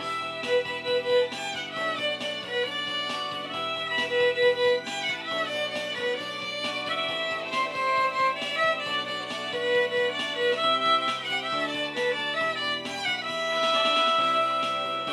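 Violin played by a self-taught beginner, bowing a pop-song melody over a karaoke backing track.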